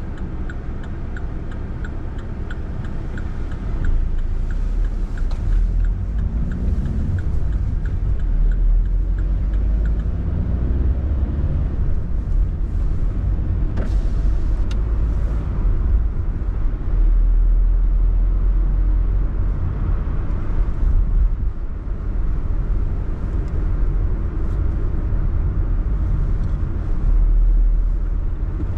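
Car driving, with a steady engine and road rumble. A regular light ticking runs through the first eight seconds or so, and the engine note rises as the car speeds up about six seconds in.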